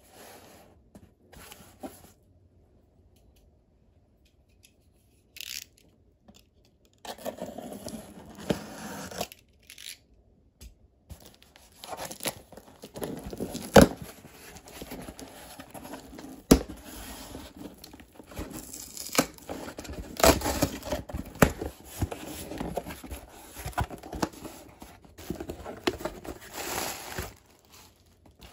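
Corrugated cardboard shipping box being torn open by hand, with tape and flaps ripping, cardboard scraping and plastic packing wrap crinkling. Sharp snaps come now and then. The handling starts after a few seconds of near quiet with a few faint clicks.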